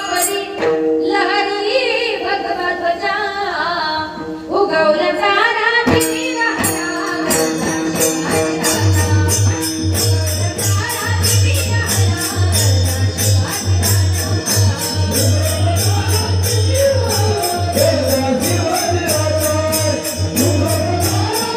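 Live devotional singing through a stage PA system, with evenly beaten tambourine jingles. A deep, steady bass comes in about nine seconds in.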